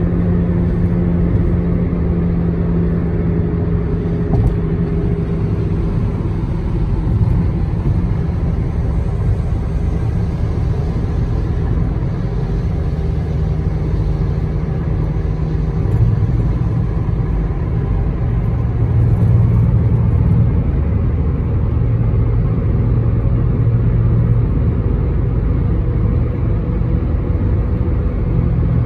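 Car interior road noise at highway speed: a steady low drone of tyres and engine, with a low hum that drops in pitch about halfway through.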